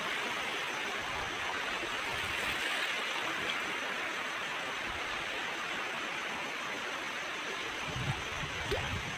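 Sea waves washing on the shore in a steady rush, with crickets chirring steadily over it. There are a few low rumbles near the end.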